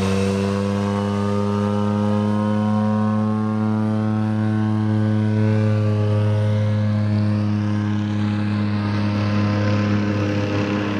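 De Havilland DHC-2 Mk.III Turbo Beaver's PT6A turboprop at high power on the takeoff roll: a steady propeller drone with a strong low hum and a stack of overtones, easing off a little near the end as the aircraft moves away.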